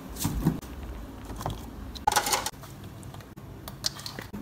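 Handling noises: scattered light clicks and knocks as a refrigerator door is opened and a plastic ketchup pouch is taken out, with a short louder clatter about two seconds in.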